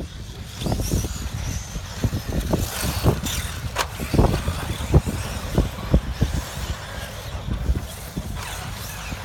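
1/8-scale electric off-road RC buggies racing on a dirt track: faint rising and falling electric motor whine over tyre noise, with many short, sharp low thumps.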